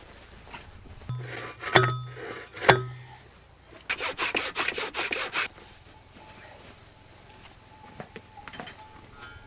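Sharp knocks, then a quick run of rapid scraping strokes on wood, from hand work on a wooden-post wire fence.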